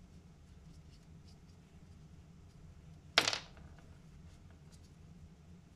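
A single sharp tap of a small hard part being set down on the workbench about three seconds in, over a low steady hum.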